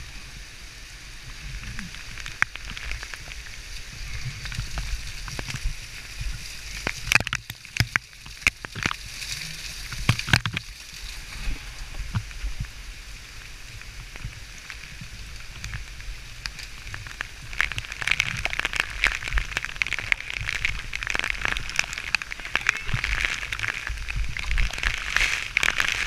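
Waterfall water rushing over rock and spattering onto a helmet camera, a steady hiss broken by a few sharp knocks about a third of the way in. The splashing grows louder in the last third.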